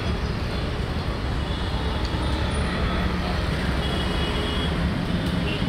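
Steady road traffic noise from a busy flyover: cars and trucks running past below in a continuous rumble.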